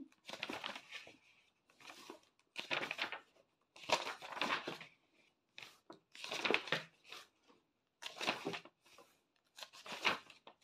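Paperback book pages being leafed through: a series of papery rustles and swishes, about one a second.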